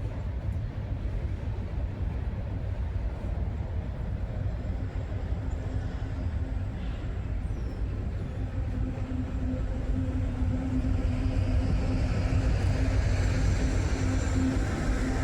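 CSX freight train on the tracks: a steady low rumble, joined about a third of the way in by a steady hum, growing louder over the last few seconds as the train comes closer.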